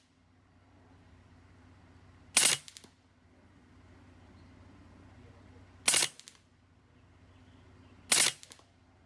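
Three single shots from an LCS SK19 .25 calibre PCP air rifle, a few seconds apart, each a sharp crack followed by fainter clicks.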